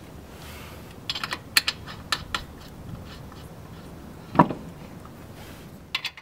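Sharp, irregular metal clicks and clinks as lug nuts go back onto the wheel studs, with one heavier knock about four seconds in.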